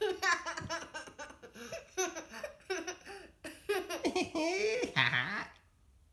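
Young boy laughing, a run of repeated high-pitched laughing bursts that stops about five and a half seconds in.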